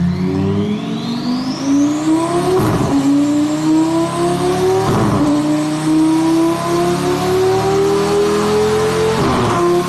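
Twin-turbo Lamborghini Gallardo V10 accelerating at low revs, its engine note climbing steadily and dropping with three upshifts, about three, five and nine seconds in. A faint high whine rises over the first two seconds.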